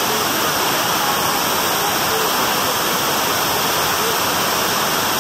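Steady rush of falling water from a garden fountain.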